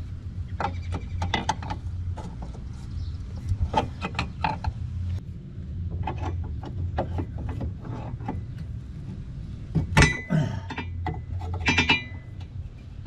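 Metal tools clinking and knocking against a broken piece of coil spring being pried out of a car's rear suspension, with a louder ringing clang about ten seconds in and another near the end, over a low steady hum.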